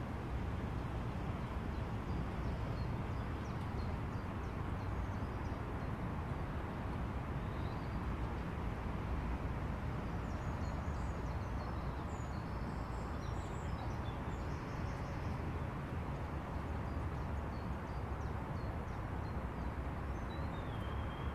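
Steady low rumble of outdoor background noise, with faint, high songbird chirps scattered through it, most of them around the middle.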